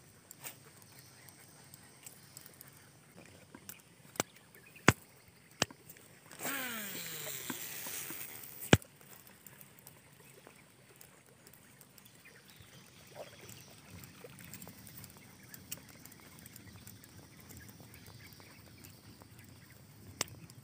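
A cast with a fishing reel: a few clicks, then about two seconds of the spool whirring as line runs out, its pitch falling as the spool slows, cut off by a sharp click.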